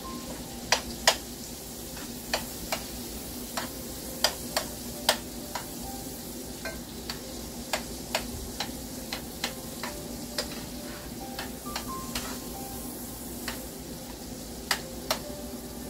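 Onions sautéing in a skillet with a steady sizzle, while a utensil stirs them, tapping and clicking against the pan at irregular moments, about one or two clicks a second.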